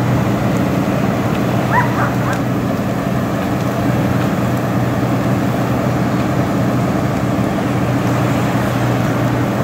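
A large engine running steadily with a constant low hum. About two seconds in, a dog gives a brief high yelp.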